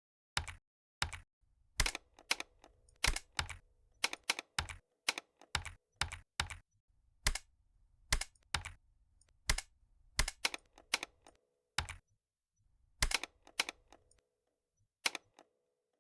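Mechanical-keyboard keystroke clicks at an uneven typing pace, roughly one or two a second, with a faint low hum beneath the middle stretch. These are switch sounds played back by a Python script on each keypress, not a real mechanical keyboard.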